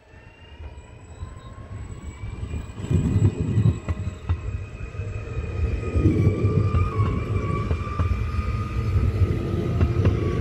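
Škoda 16Ev electric multiple unit accelerating past, its traction motors giving a whine that climbs in pitch and then holds steady. A rumble of wheels on rail grows louder as the cars go by, with louder surges about three and six seconds in.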